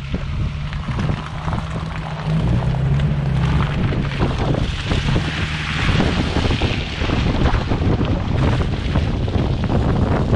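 Off-road 4x4 engine running hard as it pushes through mud, with wind buffeting the microphone over it.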